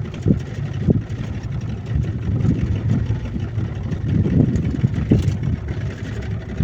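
Small boat's outboard motor running under way at trolling speed, a steady low rumble with a few brief louder surges.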